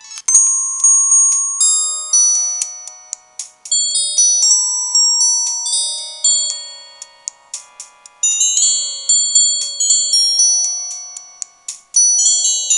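Samsung SGH-C260 mobile phone ringtones playing: bright, bell-like synthesized melodies with no bass. One tune starts just after the beginning, and another begins near the end.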